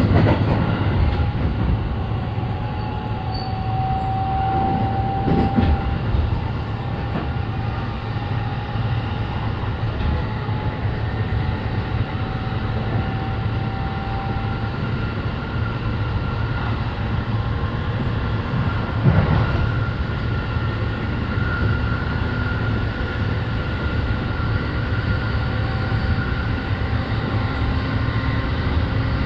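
Running noise of a JR East E531-series electric commuter train heard inside the passenger car: a steady rumble of wheels on rail with faint steady tones running through it. A single sharp knock comes about two-thirds of the way through.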